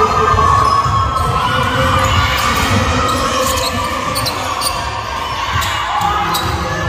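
Basketball game on an indoor wooden court: the ball bouncing and short sneaker squeaks over crowd chatter and shouts.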